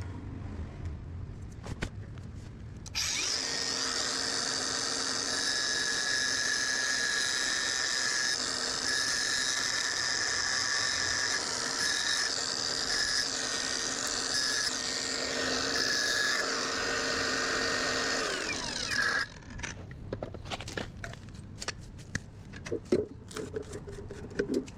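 Electric motor starts abruptly and runs at a steady high speed for about sixteen seconds, then switches off and winds down with falling pitch. Scattered light knocks and handling sounds before and after.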